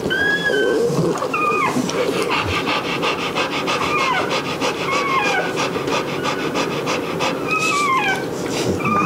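Newborn Rottweiler puppies squeaking in short, high whimpers, a handful of times, over the mother Rottweiler's quick, even panting. A soft rustle of paper towel rubbing a puppy runs underneath.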